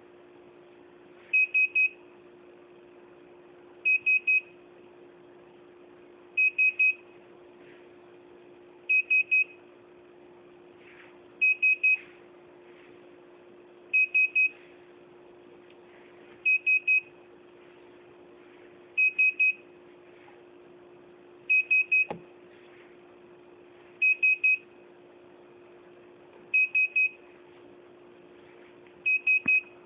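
Hitec Aurora 9 radio-control transmitter beeping: groups of three short high-pitched beeps repeating about every two and a half seconds, over a faint steady low hum.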